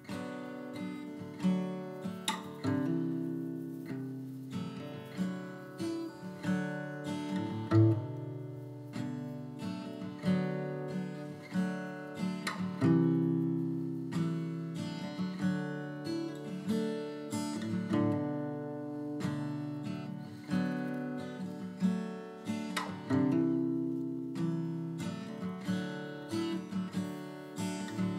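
Background music: an acoustic guitar playing a run of plucked and strummed notes.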